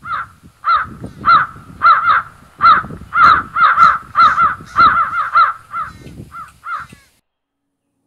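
Crows cawing: a long run of about seventeen harsh caws, two or three a second, some in quick pairs. It cuts off abruptly about seven seconds in.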